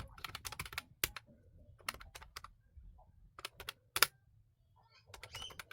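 Irregular light clicking in quick clusters of taps, with one sharper click about four seconds in.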